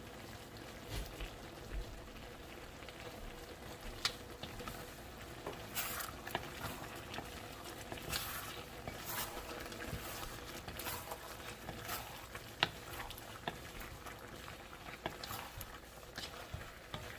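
Chicken wings adobo simmering and sizzling in a pan, with scattered pops and clicks throughout.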